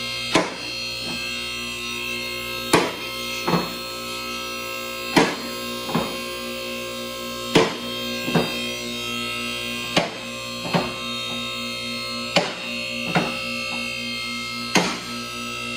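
Background music: sustained tones with a slow, regular beat.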